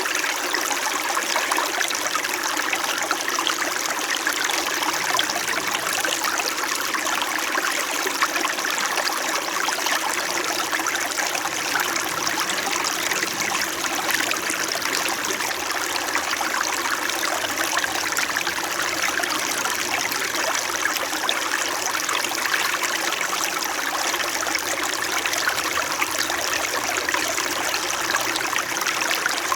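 Small mountain stream flowing and burbling steadily over rocks, a constant rushing trickle with no pauses or changes.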